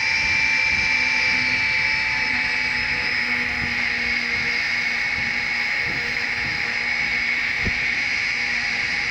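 Small 5 V brushless fan running steadily on power-bank power: a high motor whine over a steady rush of air.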